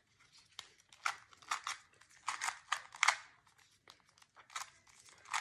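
GAN 251 M Pro magnetic 2x2 speed cube being turned quickly by hand: runs of rapid clicking turns, with a short pause in the middle.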